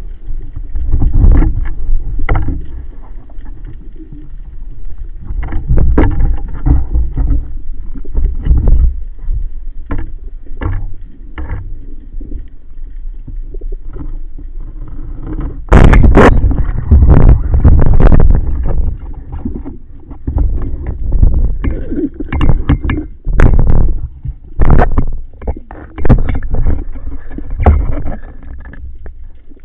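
Muffled water noise heard through an underwater camera housing while spearfishing: irregular surges of rushing water with scattered knocks against the housing, the loudest about halfway through.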